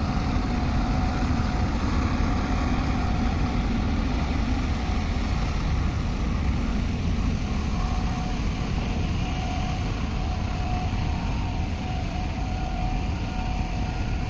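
Heavy-equipment diesel engine running steadily, a deep continuous rumble, with a faint steady whine that comes and goes in the second half.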